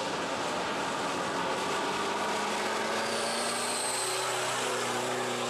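Off-road race car's engine running steadily at speed on a muddy track, a constant drone over the hiss of tyres and spray.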